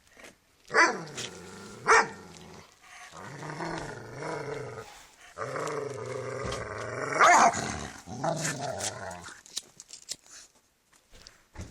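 A dog play-growling in long rumbling stretches, broken by a few sharp barks. It is demanding that someone play ball with it.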